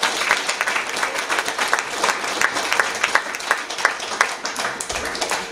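Audience applauding: a crowd of hands clapping steadily and densely.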